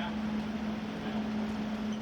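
A steady mechanical hum with one constant low tone over an even hiss, with no change in pitch or level.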